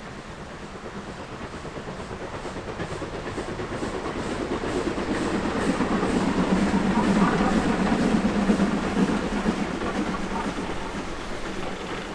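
Steam-hauled train passing, growing louder to a peak about two thirds of the way through and then fading as it goes by, with the clatter of carriage wheels on the rails.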